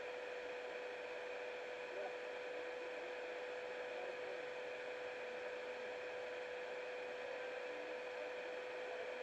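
Steady hiss with a constant humming tone: a small camera's own recording noise, with nothing else standing out.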